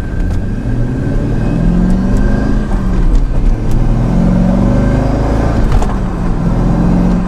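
Chevrolet C5 Corvette's V8 engine accelerating under load through a manual gearbox, its pitch climbing and dropping back several times as it is shifted up.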